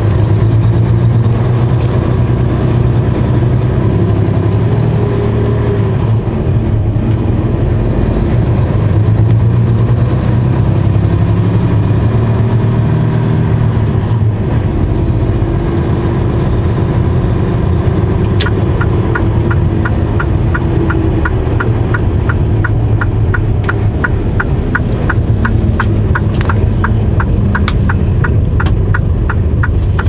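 Mercedes-Benz Actros truck engine running inside the cab while driving, its pitch rising and falling. About two-thirds of the way in, a regular clicking of roughly three a second joins it.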